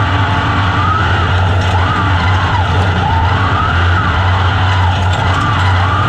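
Onboard sound of an open-wheel dirt-track race car running hard under racing: the engine's revs rise and fall over and over as the throttle is worked through the corners.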